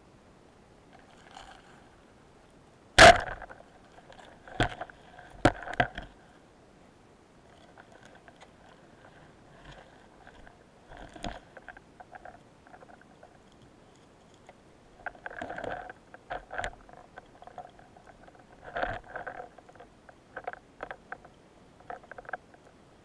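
Underwater: a speargun shot, one sharp loud crack about three seconds in, followed by a few sharper knocks and then scattered clicks and rattles of the gun and spear shaft being handled as the speared fish is brought in.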